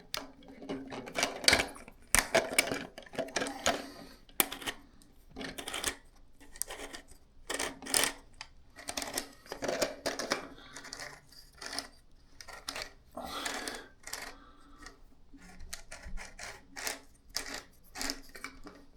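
Irregular clicks and rattles of hard plastic parts being twisted and handled as a toilet fill valve is unscrewed to adjust its length, over a faint steady hum.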